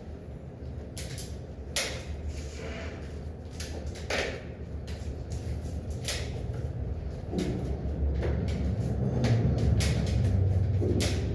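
Scattered sharp knocks and clatters, over a low rumble that grows louder about seven seconds in.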